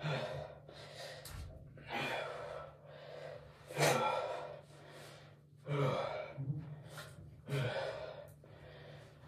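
A man breathing hard in sharp gasps and exhales, about one every two seconds, some with a slight voiced edge, over a steady low hum.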